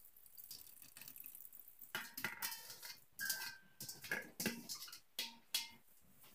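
Salted shredded cabbage and carrot, wet with its own brine, being poured into a jar: faint wet rustling at first, then a series of short wet splashes and squelches from about two seconds in.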